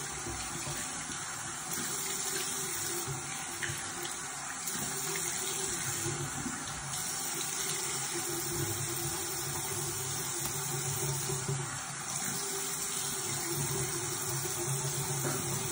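Bathroom sink tap running steadily while a face is rinsed under it.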